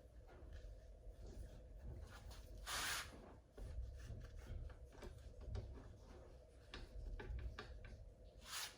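Cloth rubbing and wiping over a rifle after solvent cleaning, with small handling clicks. A louder swish of wiping comes about three seconds in.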